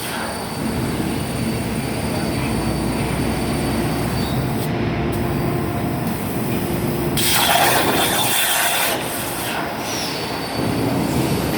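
CNC plasma cutter running, its plasma arc giving a steady harsh hiss with faint high whining tones. A louder burst of hiss comes about seven seconds in and lasts a couple of seconds.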